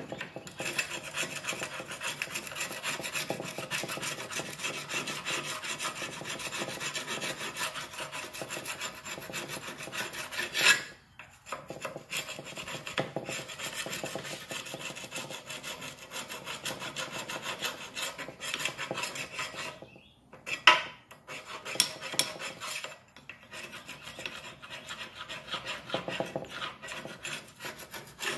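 Quick repeated scraping of old silicone sealer and gunk off the metal mating face of a water pump housing with a sharpened putty-knife scraper. Short pauses come about 11 and 20 seconds in, each with a sharp knock.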